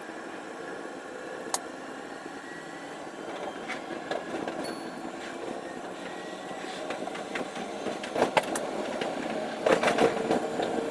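Electric train heard from inside the cab, running with a steady rumble and faint humming tones that grow louder as it picks up speed. The wheels knock sharply over rail joints and points, in clusters about eight and ten seconds in.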